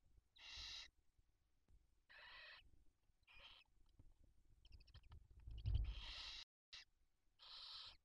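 Barn owl chicks giving raspy begging hisses: about five short hissing bursts, one every second or two. Around three-quarters of the way through, a louder hiss comes with a low thump.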